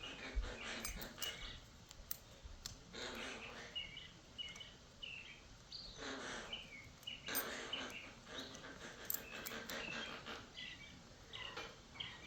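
Small birds chirping in short, repeated calls, with scattered light clicks of small parts being handled.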